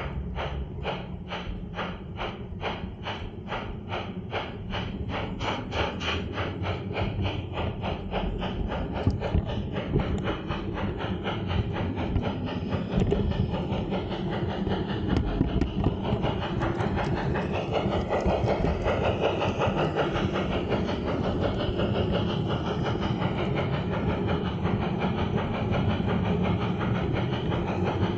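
LGB G-gauge model of a Saxon IV K narrow-gauge steam locomotive running, its sound module giving a steam chuff that quickens as the engine gathers speed. After about eight seconds the chuffs blur into a continuous rush, mixed with the running noise of the model on its track.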